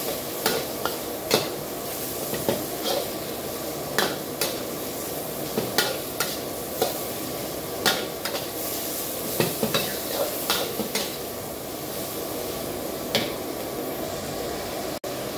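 Pork sizzling in a wok while a metal wok ladle stirs it, scraping and clinking against the pan at irregular intervals.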